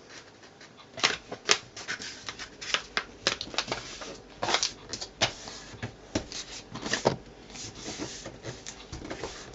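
A sheet of paper being folded in half and the fold pressed into a crease, a run of irregular crackles and rustles.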